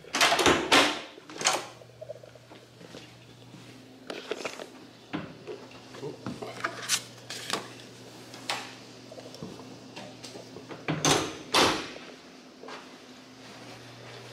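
Hotel room door being opened, with the handle and latch clattering, then two loud knocks about eleven seconds in as the door swings shut and latches. A low steady hum runs underneath, with scattered small clicks and footfalls.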